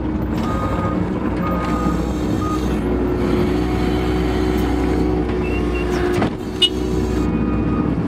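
Case skid steer's diesel engine running steadily, heard inside the cab. A warning beeper sounds about once a second for the first couple of seconds. A single sharp clank comes about six seconds in.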